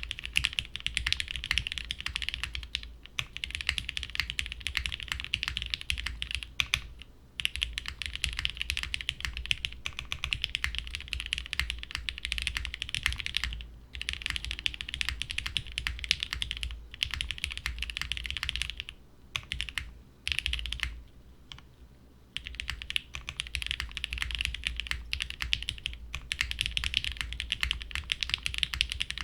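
Typing on a Vertex Studio Arc60 WKL plateless, gasket-mounted mechanical keyboard with unlubed Cherry MX Black linear switches and GMK keycaps. The keystrokes form a rapid, continuous clatter, broken by a few brief pauses and a longer one about three quarters of the way through.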